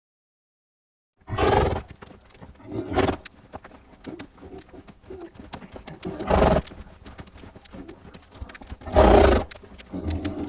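A horse making a series of loud, breathy bursts, about five of them a couple of seconds apart, with many small clicks in between.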